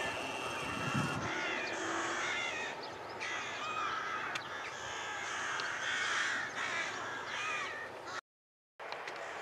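Birds calling repeatedly in short arched calls, over the low rumble of a receding train that dies away in the first second or so.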